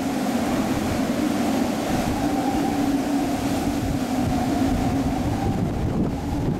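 Hurricane-force wind blowing hard, a steady howl over a low rumble of wind buffeting the microphone.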